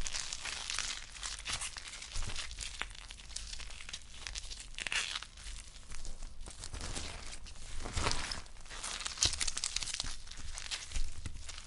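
Blood-and-guts gore sound effect: irregular tearing and crackling noises with louder crunching bursts now and then, like flesh being ripped.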